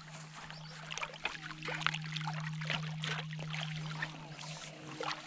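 Water splashing and sloshing in irregular bursts as a hooked fish thrashes at the surface and is scooped into a landing net, over a steady low hum.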